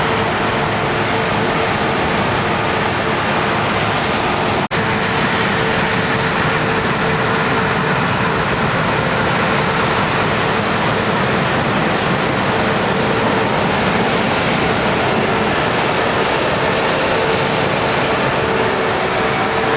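Combine harvesters and tractors working a wheat field: a loud, steady machinery rush with a steady whine, broken by a very brief dropout about five seconds in.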